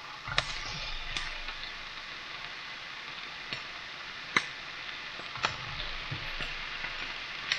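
Diced chicken frying in a skillet with cooking spray: a steady sizzle, broken by about six sharp irregular ticks or pops.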